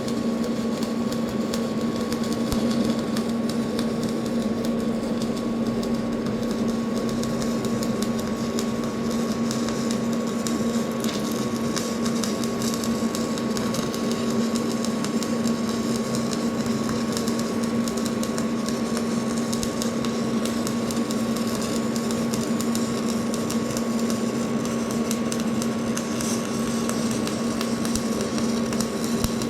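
A machine running steadily, with a constant low hum and a thin higher tone over an even mechanical noise.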